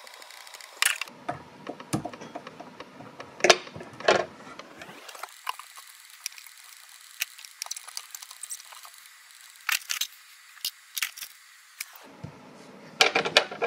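Scattered light clicks and taps of hands handling fly-tying tools and materials at a vise, a few louder knocks among them.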